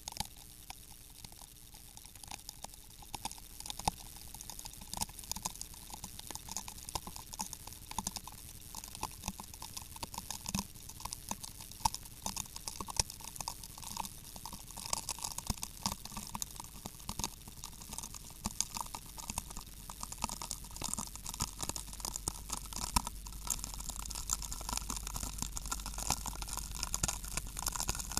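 A bag of chips crinkling and the chips crackling as they are crushed under rising pressure in a pressure chamber: a dense run of irregular crackles, with a faint tone slowly rising in pitch underneath.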